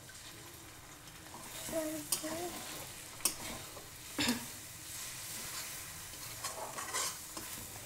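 Egg sizzling in hot oil with tomato-onion masala in a metal kadai while a metal spatula stirs and breaks it up into a scramble. A steady sizzle with several sharp scrapes of the spatula on the pan, the loudest about four seconds in.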